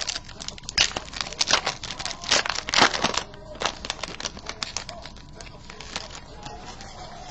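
Trading-card pack wrapper crinkling and tearing as it is opened: a dense run of crackles for about three seconds, then scattered lighter rustles.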